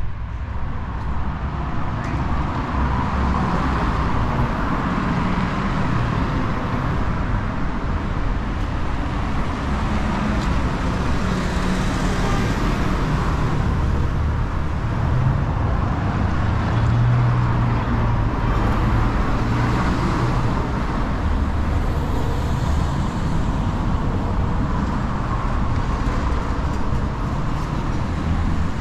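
City street traffic: cars passing one after another in a steady stream, each swelling and fading. A deeper engine hum from a heavier vehicle rises for a couple of seconds just past the middle.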